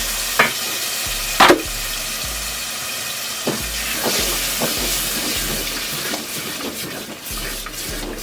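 Food sizzling in a hot frying pan, with a utensil knocking against the pan a few times, loudest about a second and a half in. The sizzle slowly gets quieter near the end.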